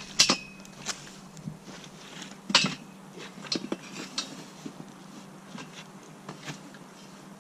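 Metal clanks and clinks as a tire on an alloy wheel is handled against a homemade slotted-angle-iron bead breaker frame. There are two loud, briefly ringing knocks, about a quarter second and about two and a half seconds in, and lighter clicks and rattles after them.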